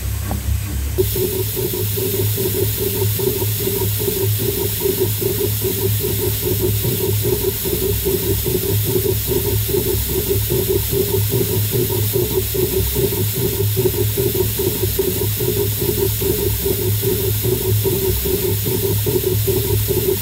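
Lathe-mounted slotting attachment cutting internal splines in a steel workpiece, with a rapid, even pulse from its cutting strokes over a low machine hum. A steady hiss of mist coolant spray starts about a second in.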